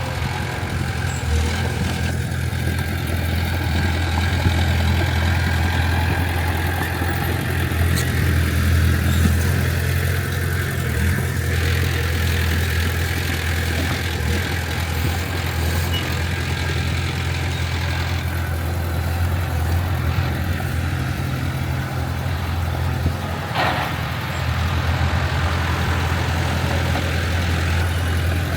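Heavy diesel earthmoving machine's engine running steadily with a low hum, while a higher layer of mechanical noise grows and fades a few times.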